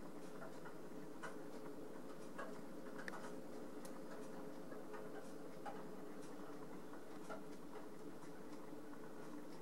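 Faint steady hum with scattered, irregularly spaced soft clicks.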